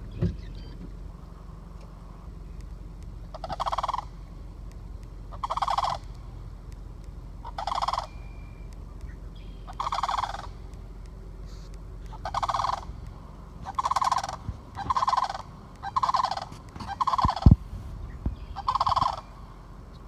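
Sandhill cranes calling: about ten rolling, trumpeting calls, spaced about two seconds apart at first and coming closer together in the second half. Under them runs a steady low rumble, and there is a sharp low thump near the end.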